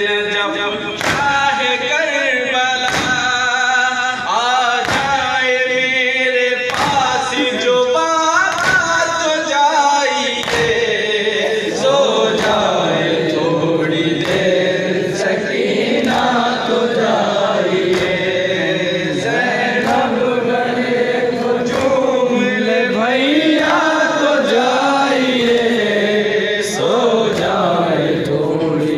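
A group of men chanting a Shia noha lament together, with sharp hand slaps of matam chest-beating keeping time about once a second, most regular in the first part and sparser later.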